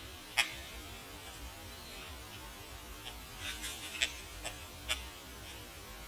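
White-backed woodpecker pecking into a birch trunk: sharp single taps on wood, one about half a second in, then several more about half a second apart in the second half, over a low steady hum.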